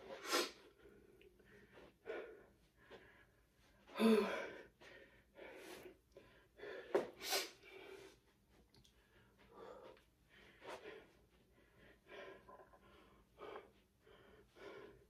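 A person breathing hard and sniffing, out of breath between sets of jump rope, with a few louder sharp breaths, the loudest about four seconds in and another about seven seconds in.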